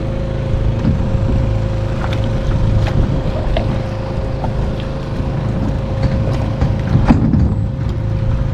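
Motor of a dredging rig on a pontoon boat running at a steady hum, with a few scattered knocks, the loudest about seven seconds in.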